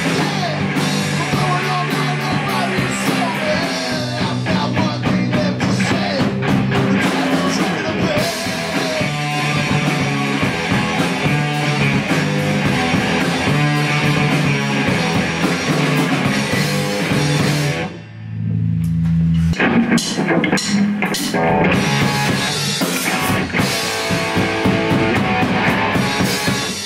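Live rock band playing electric guitars, bass and drum kit. About two-thirds of the way through the full band drops out for a moment, leaving a single low note ringing, then crashes back in.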